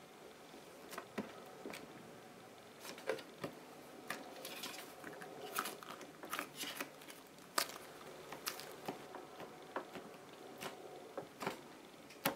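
Soft homemade butter slime, made from glue, borax, baby powder and liquid foundation, being folded, squeezed and poked with the fingers: faint, irregular sticky clicks and crackles.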